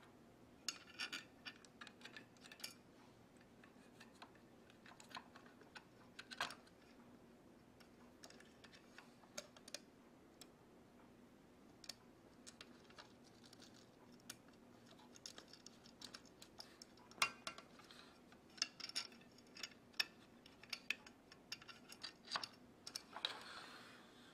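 Faint, irregular light clicks and taps of small metal parts of an aluminium quadcopter frame being handled and fitted together, with a short scraping rustle near the end.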